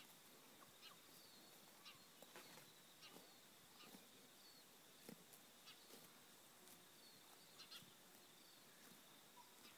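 Near silence: faint outdoor ambience with a steady high tone, soft scattered ticks and a few faint bird chirps.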